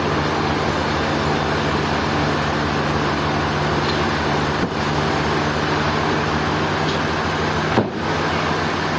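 Sawmill machinery running steadily: a constant mechanical hum and whir, with two brief dips about four and a half and eight seconds in.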